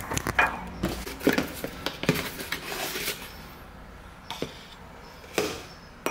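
A plastic supplement tub and scoop being handled on a kitchen counter: scattered clicks and knocks, thickest in the first few seconds. Near the end the plastic scoop knocks against a ceramic mug as powder is tipped in.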